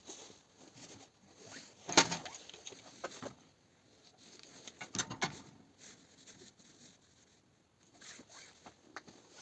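Light, irregular scratching and tapping, with a sharp knock about two seconds in and another about five seconds in.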